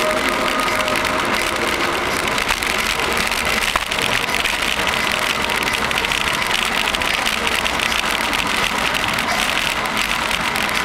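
Steady rushing road and wind noise of a bicycle being ridden through a long tunnel, with a single click about four seconds in.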